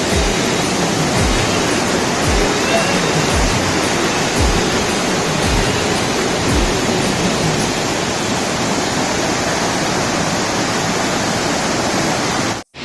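Steady roar of the Tirathgarh waterfall, with a music track's bass beat, about one a second, under it that fades out about halfway through. The sound cuts out for an instant near the end.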